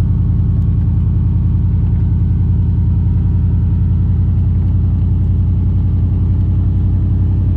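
Truck engine and road noise heard from inside the cab while driving: a steady low drone with no sudden changes.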